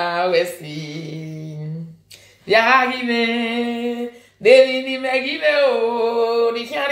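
A voice singing or chanting, with two long drawn-out held notes of about two seconds each after a couple of shorter sung phrases.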